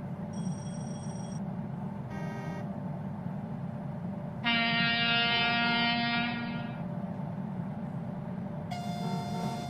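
Train horn blowing one loud note for about two seconds near the middle, with shorter, fainter horn notes before and after, over a steady low rumble.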